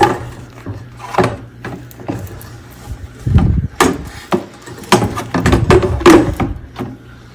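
Irregular knocks, bumps and clatter of hard animatronic parts being handled and fitted together during assembly, about a dozen in quick succession.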